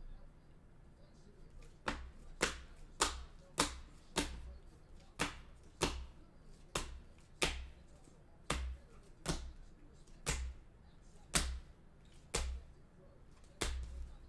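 Clear hard plastic trading card holders clacking against each other as a stack of cased cards is flipped through one at a time: sharp clicks, one every half second to a second, starting about two seconds in.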